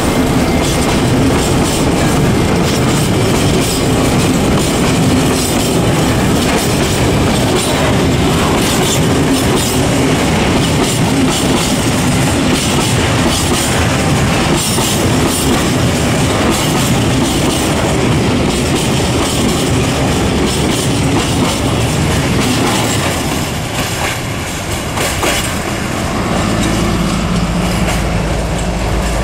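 Freight train of GATX petrol tank wagons rolling past close by: a steady loud rumble of wheels on rail with continual clickety-clack over the rail joints. Near the end, as the last wagon passes, a steady low hum comes in under the rumble.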